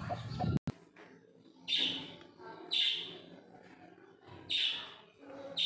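A hen's low clucking breaks off half a second in. Four short, high peeps follow, about one a second, from a chick calling inside a pipped egg.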